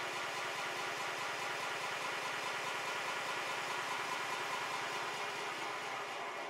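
A 5-inch gauge Stirling Single model locomotive running steadily at speed on a rolling road. Its driving wheel and connecting rod are turning fast, and the sound starts to die away right at the end.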